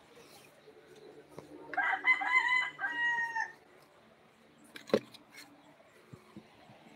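A rooster crows once, a call lasting nearly two seconds, followed a little later by a single sharp knock.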